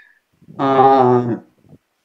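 A person's voice: one drawn-out vocal sound about a second long, held at a fairly steady pitch, with near silence before and after it.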